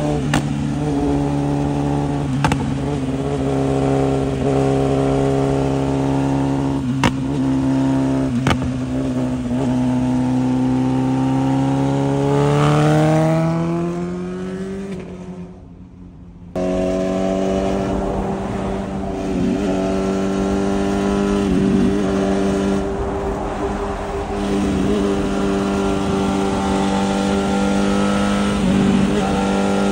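BMW S1000RR inline-four with an Arrow titanium full exhaust running steadily at highway speed. About ten seconds in the revs climb in a long rising note, then the sound fades and drops out, coming back abruptly a little past halfway to a steady cruise. A few short sharp cracks sound in the first third.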